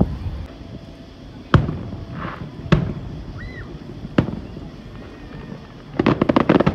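Aerial fireworks shells bursting: three separate bangs a little over a second apart, then a fast string of crackling pops near the end.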